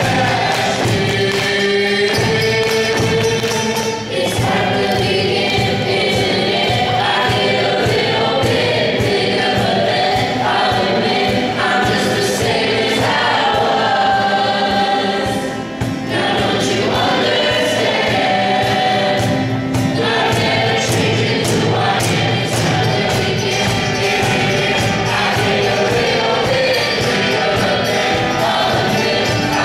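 A mixed group of graduating students singing together live, backed by a strummed acoustic guitar and a steady cajon beat.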